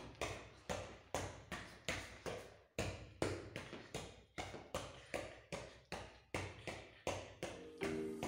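A football being juggled on the feet: a steady run of kicks, about two to three a second, each a short thud with a brief echo off the bare walls and hard floor.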